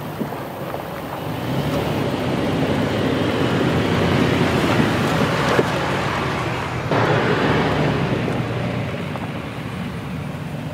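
Toyota 4Runner's V6 engine and tyres as the SUV drives close past, swelling to its loudest a few seconds in. About seven seconds in the sound changes suddenly to a steadier, slightly quieter engine note as it drives off down a grass track.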